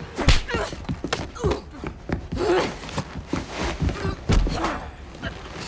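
Fight sound effects: a rapid series of thuds and blows, a heavy deep thud about four seconds in, mixed with grunts and strained breathing.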